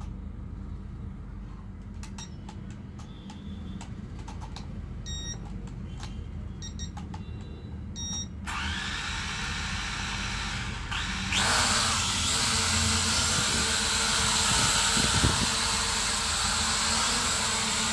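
A few short electronic beeps and clicks from an E88 Pro quadcopter and its remote. Then, about eight seconds in, the drone's small electric motors and propellers spin up with a high whine, getting louder about three seconds later.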